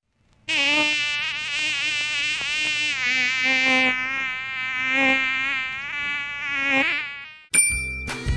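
Mosquito wingbeat whine: a steady, high buzzing tone that wavers slightly in pitch for about seven seconds. A short chime sounds near the end.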